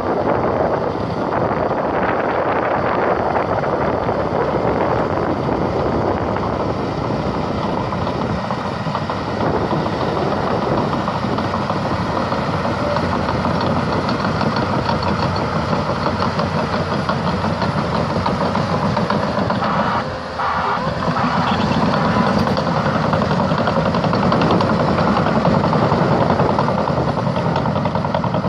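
Caterpillar D6T LGP bulldozer's six-cylinder diesel engine running steadily, with a brief drop in level about twenty seconds in.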